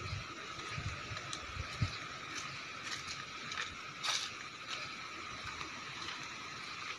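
Footsteps on a dirt path with phone handling noise, soft low thumps about a second apart, over a steady hiss. A brief crackle about four seconds in.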